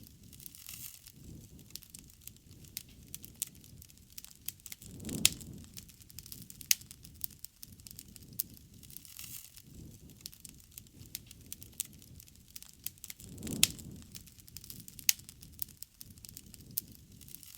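Wood campfire crackling and popping, with frequent sharp snaps over a low rumble of burning, and two louder swells of flame about five seconds in and near the end.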